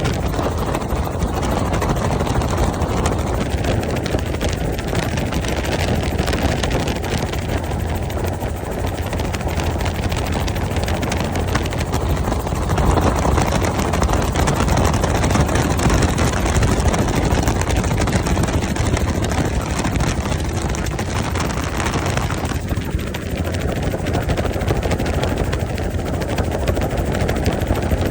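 Helicopter running: a loud, steady rotor and engine noise with a deep drone and a faint high whine above it.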